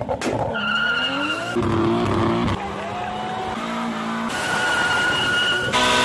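Cars doing burnouts: engines revving hard and spinning tyres squealing, in short clips cut together, so the sound changes abruptly every second or so.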